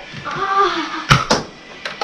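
A brief high-pitched call, then two sharp clicks in quick succession, and a fainter click near the end.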